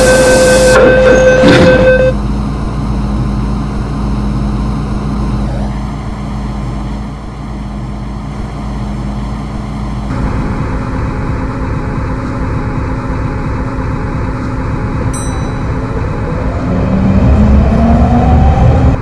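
MTR M-Train at the platform: a steady warning tone sounds for the first two seconds as the doors close, then the train stands with a steady hum. Near the end it moves off, the traction motors' whine rising in pitch as it accelerates.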